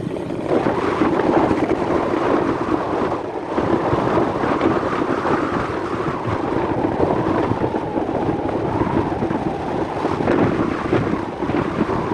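Wind buffeting the microphone on a moving motorcycle, with the engine running underneath: a loud, steady rush that swells and dips.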